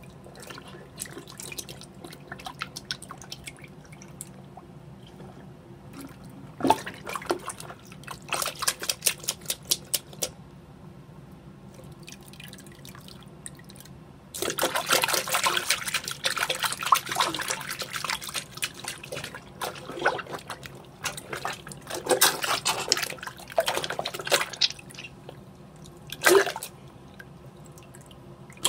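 Water splashing and dripping in a bathroom sink as a rubber dinosaur hand puppet is swished through soapy water, in bursts: a cluster of splashes several seconds in, then a longer, busier stretch of splashing from about halfway, ending with one sharp splash near the end.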